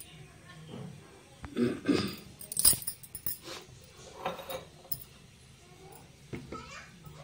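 Kitchen clatter: scattered clinks and knocks of utensils and containers being handled, with a sharp click about two and a half seconds in.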